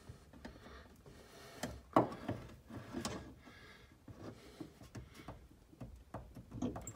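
Light metallic clicks and taps from needle-nose pliers pressing a small push-on metal cap back onto its fitting behind the dashboard, with a couple of sharper knocks about two and three seconds in.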